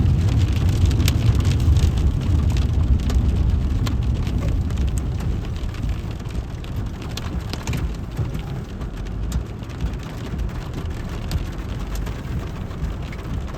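Heavy rain and hail coming down, with many scattered sharp ticks of drops and hailstones striking. A strong low rumble fades out over the first five seconds or so.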